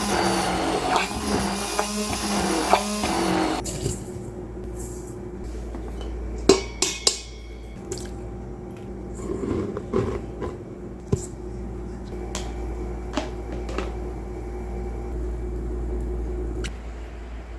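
An electric kitchen mixer's motor runs and cuts off abruptly a few seconds in. Scattered knocks and clicks of kitchen utensils and dishes follow over a faint steady hum.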